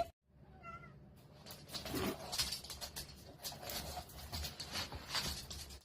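A few short animal calls, then a run of light scratching and tapping clicks.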